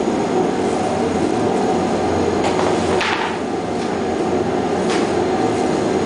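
Continuous microwave processing system running: a steady mechanical hum, with a few light knocks, the sharpest about three seconds in.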